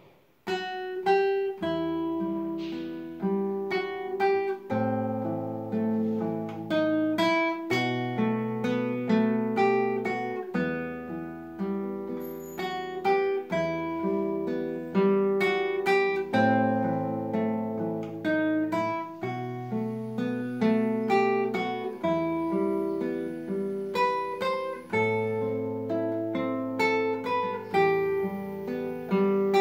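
Solo acoustic guitar playing a fingerpicked piece: plucked melody notes and broken chords over held bass notes, starting about a second and a half in.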